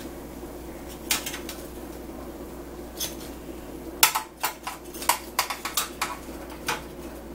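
Metal kitchen tongs clicking and clattering while handling chicken wings, with a few single clicks and then a quick run of sharp clicks about four to six seconds in, over a steady low hum.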